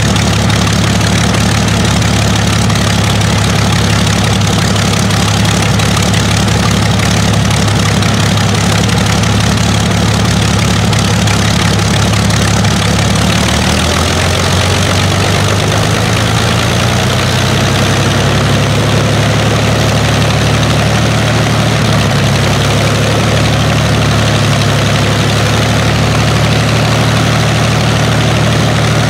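Rolls-Royce Merlin V12 aero engine running on a ground test stand, a loud, steady, deep idle. About halfway through, its speed changes and it settles into a different steady note a few seconds later.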